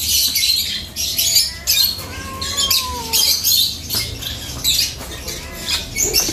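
Birds chirping and squawking in quick, high-pitched bursts, with a few short sliding calls about two to three seconds in.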